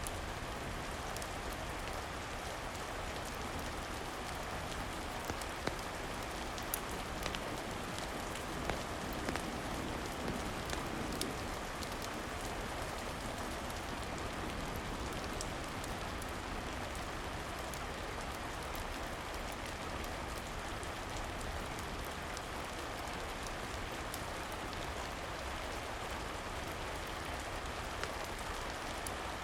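Steady rain, an even hiss of falling drops, with scattered sharp crackles and pops, most of them between about five and eleven seconds in.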